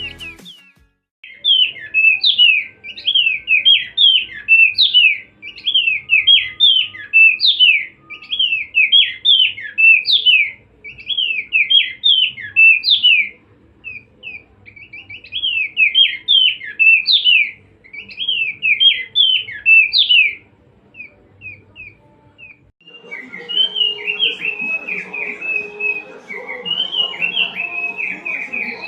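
Opior, a white-eye songbird, singing: fast runs of short, sharp chirping notes in repeated phrases. The song pauses about twenty seconds in and resumes a few seconds later over a low background noise.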